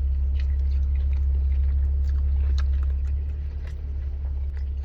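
Steady low rumble of a car heard from inside the cabin, with faint soft clicks of someone chewing.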